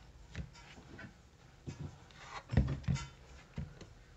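A refrigerator inverter control board being handled and turned over on a tabletop: a few light taps, then a couple of louder knocks about two and a half seconds in as it is set down.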